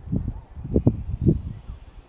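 Four or five dull knocks with some rustling, right against a camera mounted on a feeder, spread over the first second and a half and then fading.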